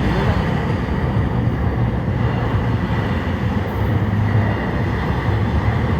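Train running alongside a platform: a loud, steady, low rumble of wheels and engine.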